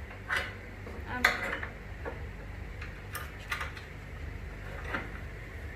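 Small metal furniture-assembly hardware, screws and fittings, being handled: several separate sharp clinks and taps, spaced about half a second to a second apart.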